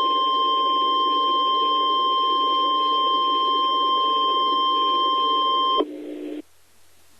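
NOAA Weather Radio 1050 Hz warning alarm tone heard through a radio receiver: one steady high tone with a rough buzz beneath it. It cuts off about six seconds in, leaving faint radio hiss, as the broadcast moves on to the test's voice message.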